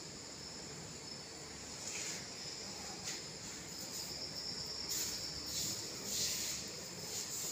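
Insects trilling, a steady high-pitched chirring that swells louder a few times.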